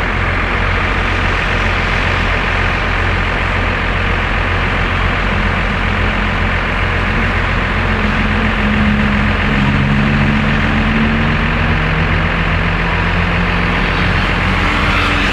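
Roadside traffic noise with the engine of a large vehicle such as a bus running low. Its low engine note comes up about a third of the way in, drifts slowly in pitch and fades near the end. No horn sounds.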